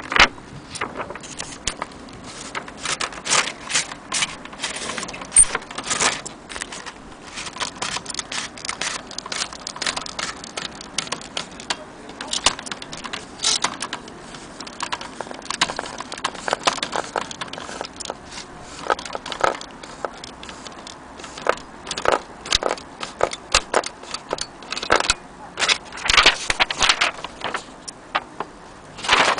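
Irregular sharp clicks and clacks of a small metal mechanism being worked by hand, some coming in quick clusters.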